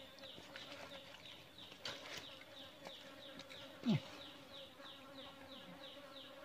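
Insects calling around the stream: a regular run of short, high, downward chirps, about three a second, over a steady drone. About four seconds in there is one brief, louder low sound that slides down in pitch.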